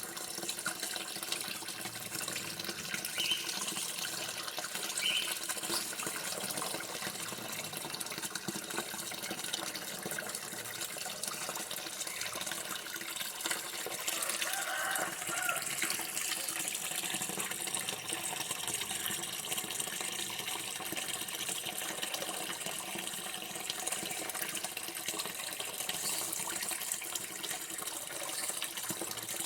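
Water running steadily from a tap, a continuous even splashing flow.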